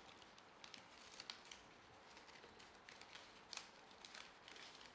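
Faint rustling of paper and a shipping envelope, with a few light scattered ticks, as a shipping label is slid into the envelope.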